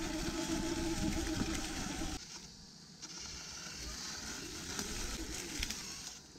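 SUR-RON electric off-road bike running slowly over grass: a steady motor hum with tyre and chassis noise that cuts off abruptly about two seconds in as the bike slows, leaving quieter rolling noise with scattered clicks and knocks.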